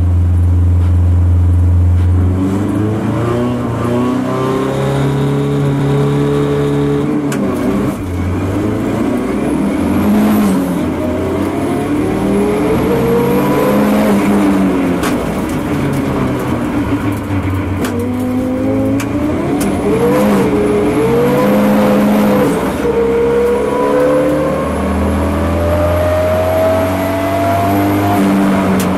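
Race car engine heard from inside the cabin, launching from a standstill and accelerating hard, loud throughout. The pitch climbs and drops back at each upshift, several times.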